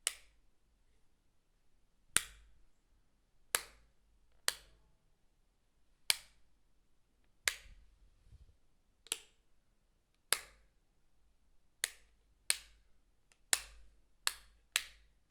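A light switch flicked on and off over and over, one sharp click at a time, about a second or so apart, the clicks coming quicker near the end.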